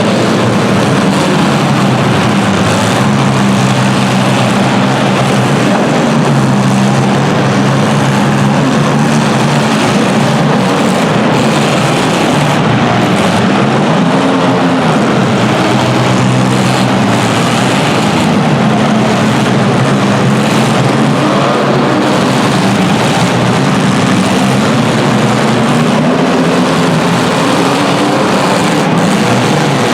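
Several compact-car engines running and revving at once, their pitch rising and falling throughout over a dense, loud noise.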